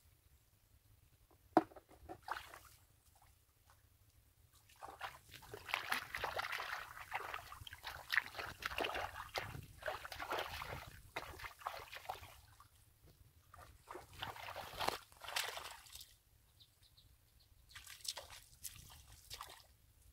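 Shallow muddy water sloshing in irregular bursts as hands and bare feet work through the mud, busiest from about five to eleven seconds in. A single sharp click about a second and a half in.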